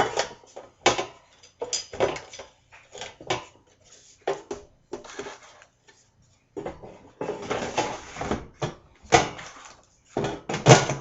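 Air fryer basket and parts being handled: a series of sharp knocks and clatters, with two longer noisy stretches of handling, one around the middle and one past halfway.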